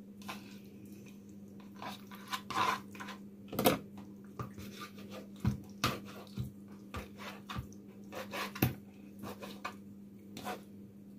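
Scattered clinks and knocks of bones and pieces of boiled pork knuckle being handled against a dish as the meat is picked apart, over a steady low hum.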